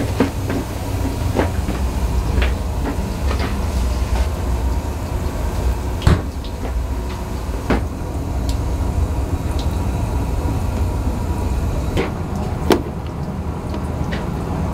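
Scattered clacks and knocks of metal eel skewers and a stainless-steel tray being handled, two of them louder, about six seconds in and near the end, over a steady low rumble.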